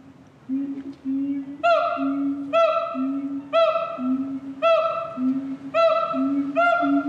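Gibbons singing a series of pure-toned hooting calls. A steady lower note alternates with higher whoops that rise and fall. The higher whoops join in about a second and a half in, and the calls come roughly once a second, quickening toward the end.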